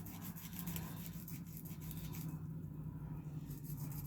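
A small sanding file worked by hand in quick rasping strokes, deburring a freshly cut part. The strokes stop a little past two seconds in and start again near the end, over a steady low hum.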